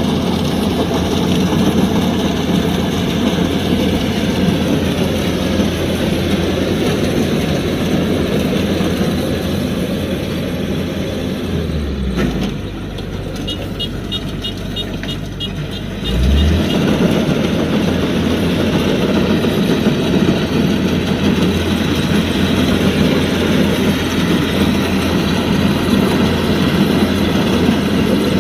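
Kubota DC-105X combine harvester's diesel engine running steadily. About twelve seconds in, the engine drops to a lower, quieter note for about four seconds, then picks back up.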